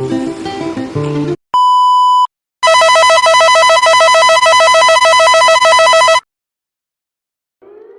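Mock emergency alert broadcast tones. Acoustic guitar music cuts off, then comes a short steady beep, then a loud, rapidly warbling two-tone alert signal for about three and a half seconds, which stops abruptly. After a moment of silence, a siren tone starts rising near the end.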